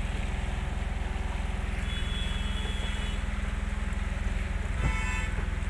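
Engine of a Mahindra SUV running steadily, heard from inside the cabin as an even low rumble, with a brief low thump about five seconds in.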